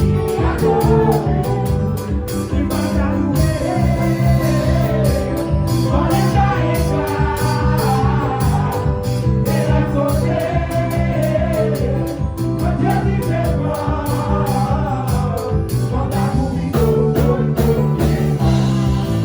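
Gospel praise song: a voice singing a melody over guitar and bass chords, with a steady beat.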